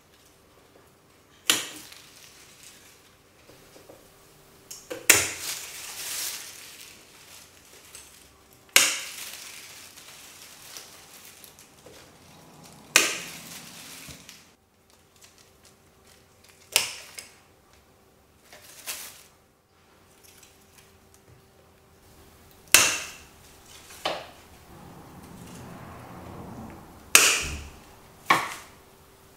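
Bonsai scissors snipping through Japanese maple twigs: about ten sharp snips a few seconds apart, each with a short fading tail.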